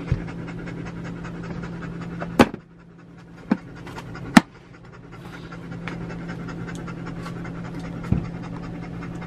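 A dog panting steadily close by, breaking off briefly in the middle, over a steady low hum. A few sharp knocks from a toddler handling a hammer and tools at a plastic toolbox, the loudest about four and a half seconds in.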